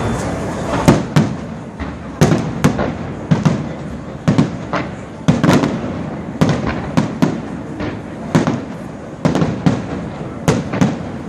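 Aerial fireworks display: a steady barrage of shell bursts, booming about once or twice a second, each with an echoing tail, over continuous crackle.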